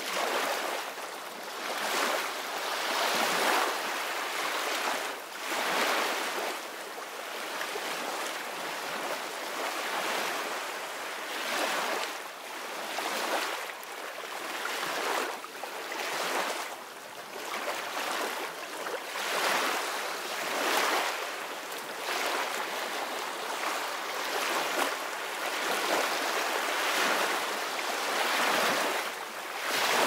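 Small surf breaking and washing up a sandy beach, a steady rush of water that swells and fades every couple of seconds.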